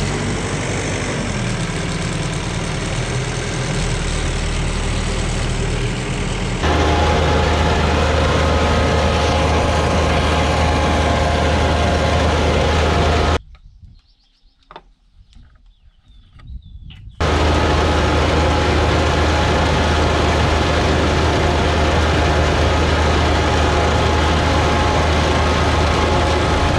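Tractor engine running steadily, in separate clips joined by abrupt cuts; about halfway through the sound drops to near silence for a few seconds before the engine is heard again.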